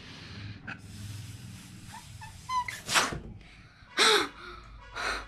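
Someone blowing hard into a rubber balloon, with breath and a brief squeak of rubber, then a loud short burst of breath about three seconds in and a short falling vocal cry a second later, with one more breathy burst near the end.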